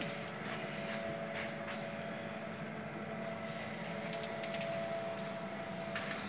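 A steady machine hum with held tones, broken by a few faint light clicks.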